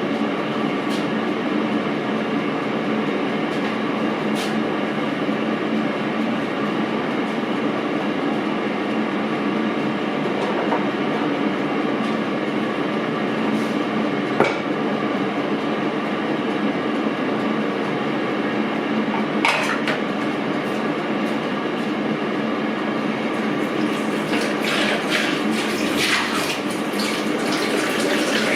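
A steady droning noise holding several even tones, with a few sharp ticks. Splashing and clattering come in near the end, like water running from a tap.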